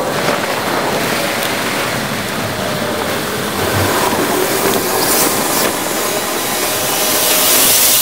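Steady rushing noise of wind and rolling along on a bicycle, picked up by a bike-mounted camera and sped up eight times.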